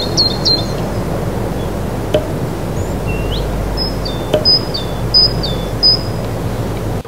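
Steady rushing noise with a run of short, high chirps that drop in pitch, and two faint ticks.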